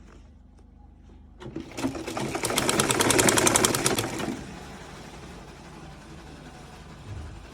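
Sewing machine stitching in one quick run of rapid needle strokes. It starts about a second and a half in and stops about three seconds later, leaving a low hum.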